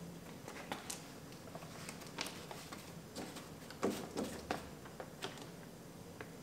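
Door water barrier being pressed by hand onto its gooey sealant on the door's inner panel: soft rustling with scattered light clicks and taps, a few louder ones about four seconds in.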